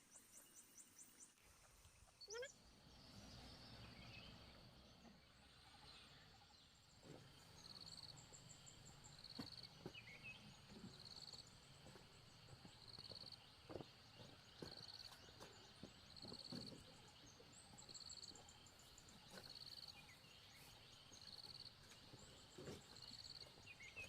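Quiet outdoor ambience. A short, high-pitched call repeats about every second and a half, with a few higher chirping trills and scattered faint knocks.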